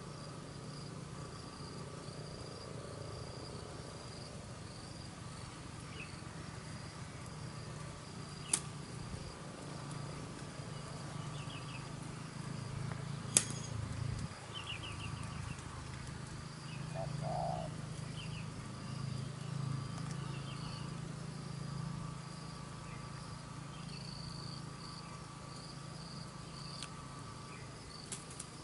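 Steady high-pitched trilling of insects such as crickets, over a low steady hum, with faint short chirps and two sharp clicks about a third and halfway through.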